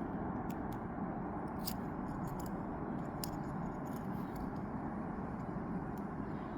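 A few light clicks and ticks as the tiny BRS 3000 ultralight gas stove is handled, over a steady low background rumble.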